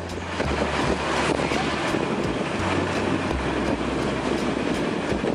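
Steady outdoor city street noise, a dense even rush with wind rumbling on the microphone underneath.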